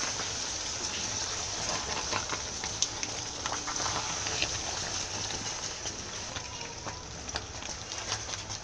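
Thick ekpang nkukwo stew bubbling and sizzling in a pot while it is stirred with a wooden spoon, a steady hiss dotted with many small pops and clicks.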